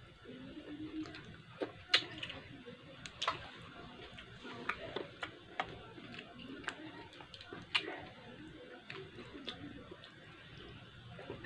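Someone eating mussels by hand: chewing, with scattered sharp clicks of mussel shells and a metal spoon against a ceramic bowl, roughly one click a second at an uneven pace.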